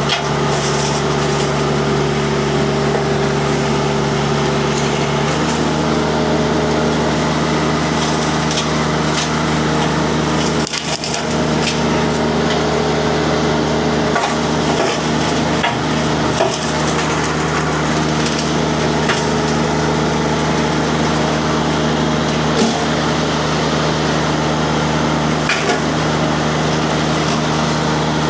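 Mini skid steer's Kubota diesel running hard with a disc mulcher spinning, chewing through brush and small trees amid repeated cracking and splintering of wood. The machine's pitch shifts about five seconds in.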